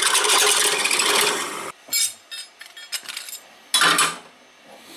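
Bench drill press boring through a galvanized steel bracket held in a machine vise, enlarging a mounting hole that did not line up. The drilling runs loud and grinding, then stops suddenly about two seconds in, followed by a few light clicks and knocks and a short clatter as the bracket is taken out of the vise.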